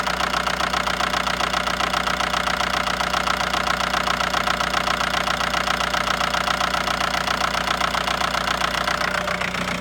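Toyota Grandia's diesel engine idling steadily with a knock, which the mechanic puts down to fuel pressure that is still low.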